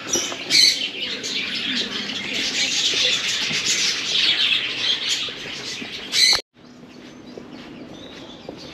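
Many birds chirping and chattering together, a dense flock, with two loud sudden noises about half a second and about six seconds in. After an abrupt cut, only fainter, scattered chirps are left.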